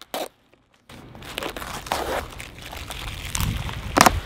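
Packing tape being ripped off a cardboard shipping box and the cardboard torn open: a crackly tearing and crinkling that starts about a second in, with one sharp, loud rip near the end.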